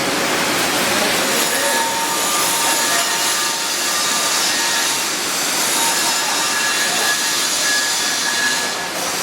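Arc welding on carbon steel pipe: a steady, even hiss of the welding arc, with faint high tones in it.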